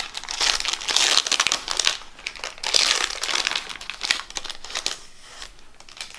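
Foil wrapper of a Pokémon Celebrations booster pack crinkling as it is torn open and handled, in dense crackling bursts that die down after about four seconds.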